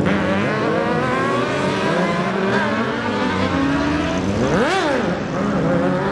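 Sport motorcycle engines accelerating away, their notes climbing repeatedly as they pull through the gears, with one quick rev that rises sharply and drops back about four and a half seconds in. Street traffic runs underneath.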